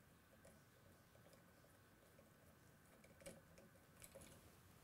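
Near silence, with a few faint clicks of a screwdriver working the terminal screws of a wall light switch, the clearest two a little after halfway and near the end.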